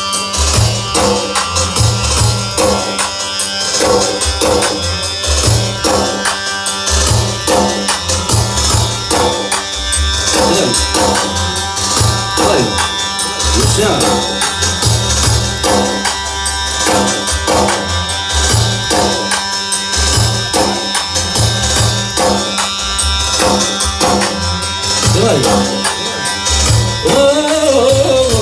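Music with a heavy, regular drum beat and busy hand percussion over a sustained melody line; a wavering voice-like melody comes in near the end.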